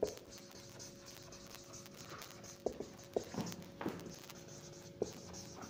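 Marker writing on a whiteboard: faint strokes with a few light taps about three to four seconds in and again near the end, over a steady faint hum.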